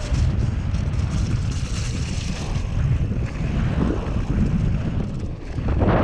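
Wind buffeting the action camera's microphone over the rumble of a Whyte G-170 mountain bike's tyres rolling fast down a dirt and gravel trail, with a constant chatter of small clicks and rattles from the bike.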